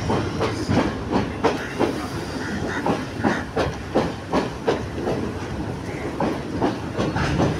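Sri Lanka Railways Class S9 diesel multiple unit's coaches passing directly beneath, their wheels clacking over the rail joints in quick uneven groups over a steady rushing hiss of the running train.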